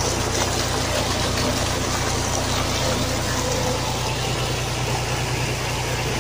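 Tubewell discharge: a thick jet of water gushing steadily from the outlet pipe into a brick channel and churning there, over the steady low drone of the pump running.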